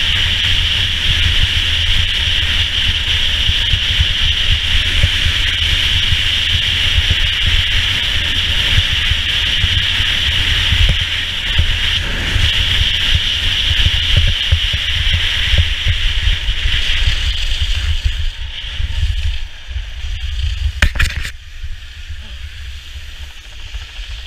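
Wind buffeting an action camera's microphone over the steady hiss of skis running fast on packed snow. Near the end the noise drops off as the skier slows and stops, with two sharp knocks just before.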